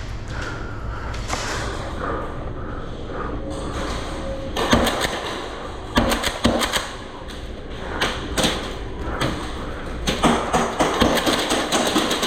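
Indoor airsoft game in progress: a run of sharp clicks and knocks over a low rumble, in two dense clusters, one about five seconds in and one from about ten seconds in.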